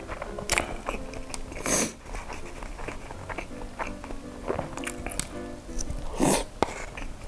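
Close-miked eating: biting, chewing and slurping noodles from a paper cup with chopsticks, with two louder mouthfuls about two seconds in and near the end. Background music plays underneath.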